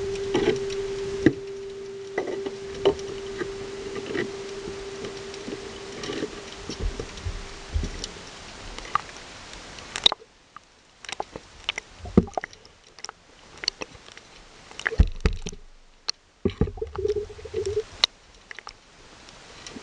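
Underwater sound through a camera's housing: a steady hum and watery hiss with scattered clicks for about the first half, then, after a sudden drop about ten seconds in, quieter irregular knocks and clicks of gear and water against the housing.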